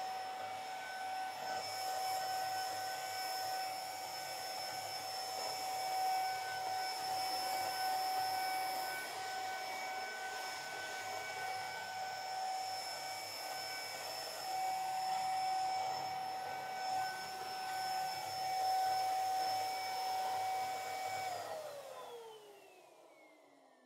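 Electric balloon pump running steadily with a high whine and a rush of air. About 21 s in it is switched off, and the whine falls in pitch as the motor winds down.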